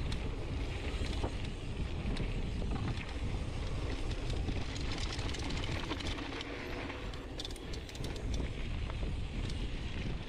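Mountain bike rolling fast down a dirt and gravel trail: a steady rumble of tyres on the ground and wind buffeting the microphone, with scattered clicks and rattles from the bike and loose stones, more of them around the middle.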